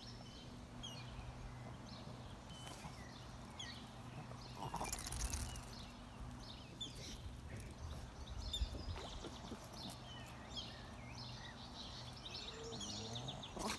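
Birds chirping and calling, many short high chirps, over a steady low hum, with a brief louder rustling noise about five seconds in.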